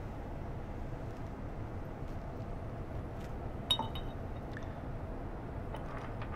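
A single sharp metallic clink with a short ring as the metal hammer case of an Ingersoll Rand 2235 pneumatic impact wrench is fitted back onto the tool, over a steady low hum.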